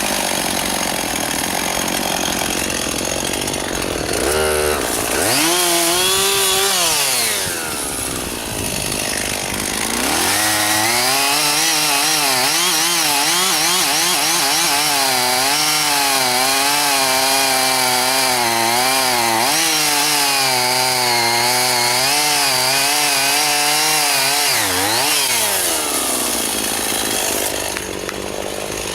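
Chainsaw revving up briefly about five seconds in and easing off, then running at full throttle for about fifteen seconds, its pitch wavering as it cuts through wood, before dropping back toward idle near the end.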